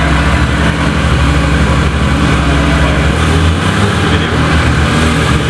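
Porsche 911 flat-six engine idling steadily, a loud low note whose pitch shifts about three seconds in.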